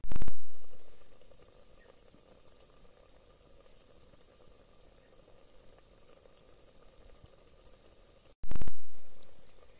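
Spiced yogurt curry (dahi tikhari) bubbling faintly and steadily in a black pot over a wood fire. A loud sudden sound cuts in at the very start and again about eight and a half seconds in, each fading away over a second or so.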